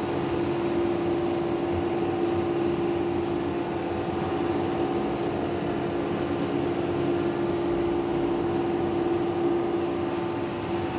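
Standby generator set running steadily under load, a constant mechanical hum with a strong steady tone and faint ticks about once a second.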